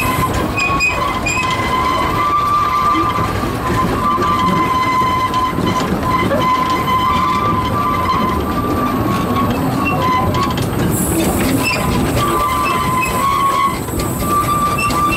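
The 1924 steam locomotive Wee Georgie Wood running on 610 mm gauge track, heard from on board: a steady rumble and rattle of the engine and wheels, with a high wheel-flange squeal coming and going on the curve.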